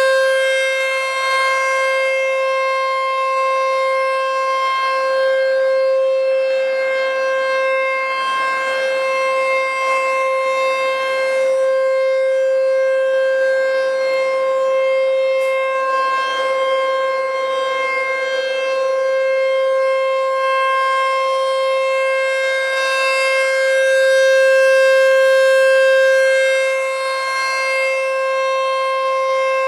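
American Signal T-128 electromechanical warning siren sounding a loud, steady tone at constant pitch. Its volume swells slightly for a few seconds near the end.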